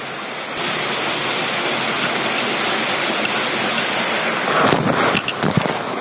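Waterfall rushing and splashing into its pool as a dense, steady hiss that grows louder about half a second in. Near the end come a few closer, sharper splashes and knocks.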